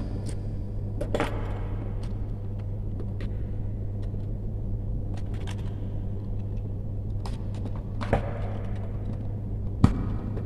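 Light clicks and taps from a plastic wall socket and its wires being handled during wiring, scattered through, with the sharpest one near the end. A steady low hum runs underneath.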